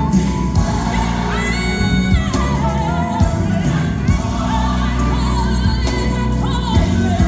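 Gospel song playing, with a lead vocal over a steady bass line. About a second and a half in, the singer rises to a held high note.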